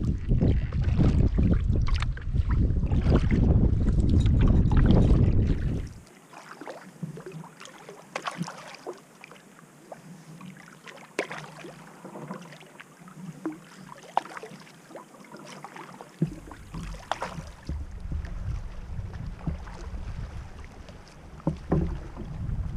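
Water splashing and lapping around a canoe, with many short splashes through the middle. Heavy wind buffets the microphone for the first few seconds, cuts off abruptly, and comes back near the end.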